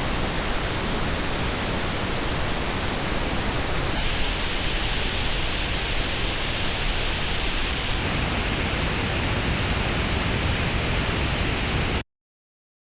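Pink noise test signal, played for a frequency-response comparison of Apple earbuds. Its tone changes abruptly about 4 seconds in and again about 8 seconds in, and it cuts off suddenly about 12 seconds in.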